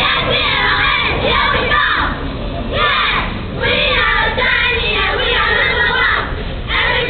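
A large crowd of young voices shouting and cheering together, with two short lulls, one a couple of seconds in and one near the end.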